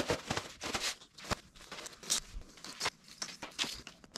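Electrical cable being pulled off its coil and dragged across a concrete floor: a run of irregular scuffs, clicks and rustles.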